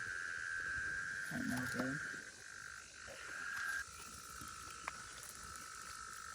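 A steady, high-pitched chorus of frogs.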